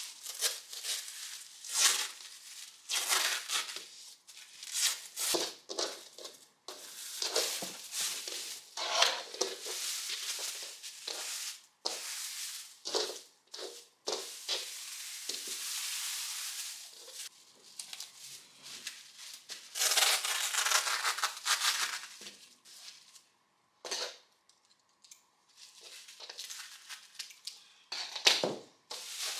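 A series of separate scraping and rustling handling noises, some short and some lasting a second or two, broken by several sudden cuts.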